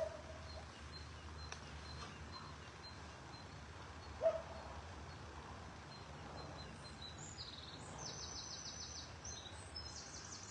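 Small birds chirping and trilling quickly in the last few seconds over a steady low outdoor background noise. A single short call cuts in about four seconds in.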